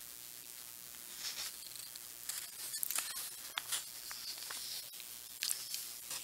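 Faint scattered clicks and soft brief rustles in a quiet room.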